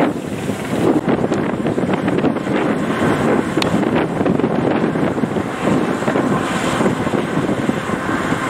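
Yanmar YH850 combine harvester running steadily as it cuts and threshes rice, a dense mechanical rumble, with wind buffeting the microphone.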